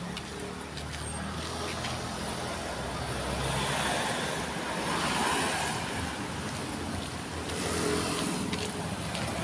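Road traffic: a white passenger van drives past, its engine and tyre noise swelling to a peak about halfway through. The traffic noise rises again near the end.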